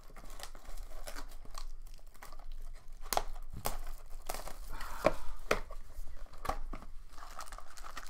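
A sealed trading-card box being torn open: its plastic wrap crinkles and tears, with irregular sharp crackles and clicks from the wrapper and the cardboard.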